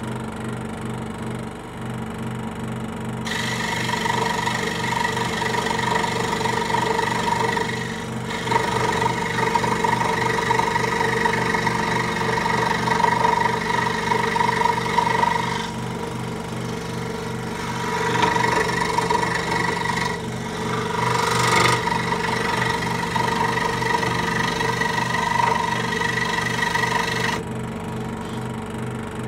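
Axminster AWFS16 16-inch hobby scroll saw running, its blade stroking up and down with a steady, fast, rhythmic hum; not very quiet. A few seconds in the blade starts cutting through scrap timber, adding a sawing noise, and near the end it runs free again.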